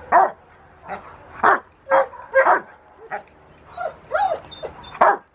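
Young Rottweiler barking in short, high barks, about ten in a row roughly half a second apart.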